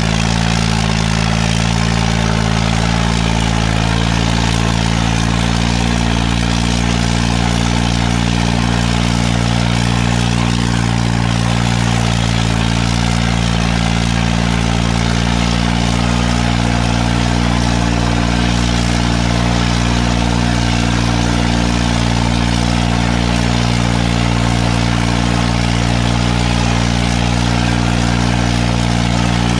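New Holland 3630 tractor's three-cylinder diesel engine running hard at steady revs as it pulls an implement on a chain through soft ploughed soil. The note holds without rising or falling.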